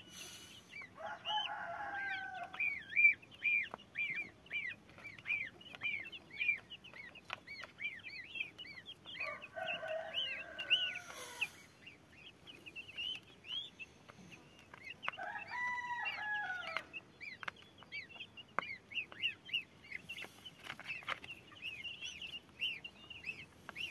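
Goslings and young chicks peeping almost continuously in short high chirps while feeding. A rooster crows three times, about a second in, near the middle, and about two-thirds of the way through.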